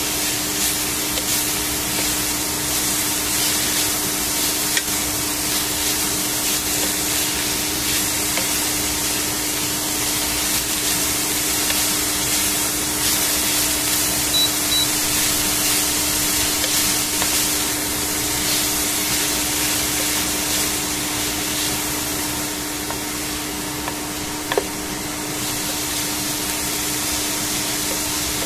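Shredded cabbage and carrot sizzling in a hot stainless steel pan, stirred and scraped with a wooden spatula, under a steady hiss and a constant hum.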